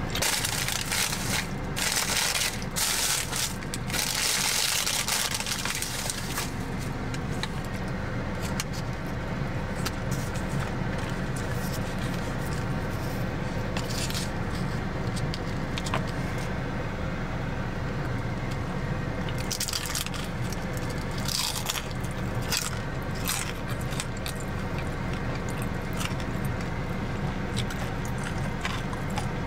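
Close-up eating sounds: chewing and crunching of fried takeout food, with scraping and rustling of a styrofoam takeout box, louder rustling in the first few seconds. A steady car-cabin hum runs underneath.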